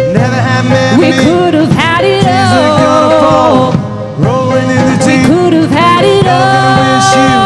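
A country rock band playing live, a woman singing lead over electric guitar, keyboard, bass and drums, with a brief dip about halfway through.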